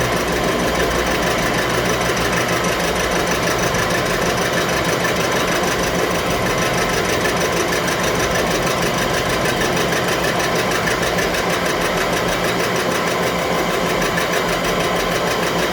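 Steady, loud mechanical running noise from a motor or powered machine, with an even fast flutter and no break.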